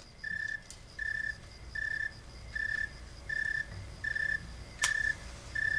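A single cricket chirping evenly, about four chirps every three seconds, each a short steady tone at the same pitch. One sharp click sounds near the end.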